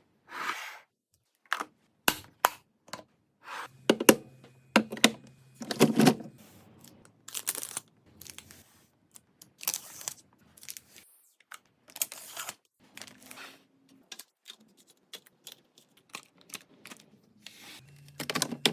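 Groceries and containers being handled and put into a refrigerator: plastic packaging rustling and tearing, with clicks and knocks as items are set down.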